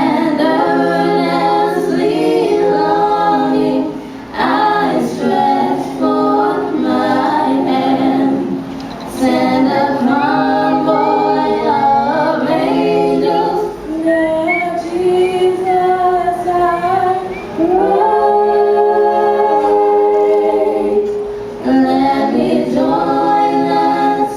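A vocal group singing a cappella in harmony, phrase by phrase with short breaks between lines.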